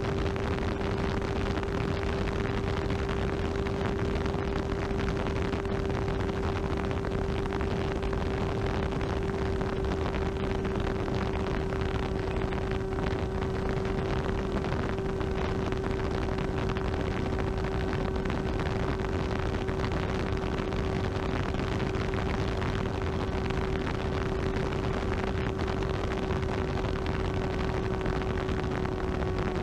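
Small electric FPV flying wing in steady cruise, heard from its onboard camera: the 2203.5 1650kv brushless motor and 6x4 propeller run at one unchanging pitch over a constant rush of wind noise.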